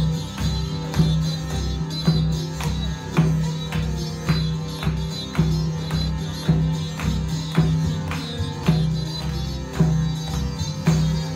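Live kirtan music: harmonium and a sustained low tone under a steady hand-drum beat, accented about once a second, with jingling hand percussion.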